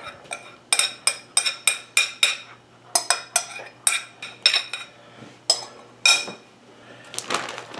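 Sharp ceramic clinks from an upturned bowl being knocked as the last of the marinade is emptied out: a few a second in two runs with a short pause between, then two single clinks. Plastic bag crinkling near the end.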